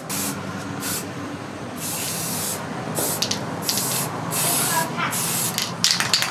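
Aerosol spray can hissing in a series of short bursts, about eight, as it is sprayed along a steel sword blade. The bursts are uneven in length, from a quick puff to nearly a second, with brief gaps between them.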